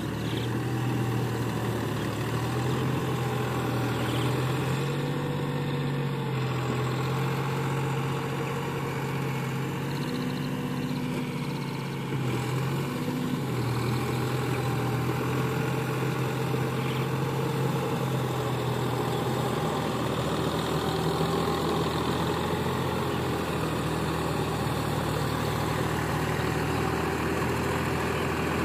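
Deutz-Fahr Agrolux 50 tractor's diesel engine running steadily under load as it pulls a rear implement through a flooded, muddy paddy field. The sound dips briefly about halfway through and then comes back a little louder.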